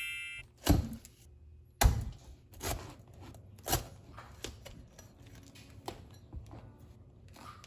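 A cleaver chopping into a durian's spiky husk on a wooden cutting board: four sharp chops in the first four seconds, then softer knocks and cracks as the blade is worked into the husk. A bright chime fades out at the very start.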